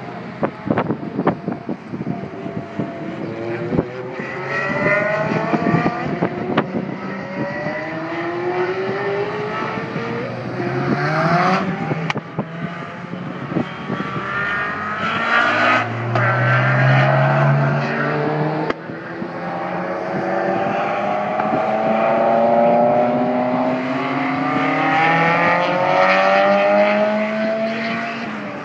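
Ferrari engines revving hard, their pitch climbing again and again and dropping back as they accelerate and shift, with wind buffeting the microphone and crackling during the first few seconds.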